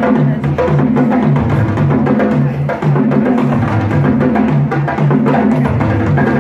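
Dance music with a steady percussion beat and a bass line that repeats about twice a second.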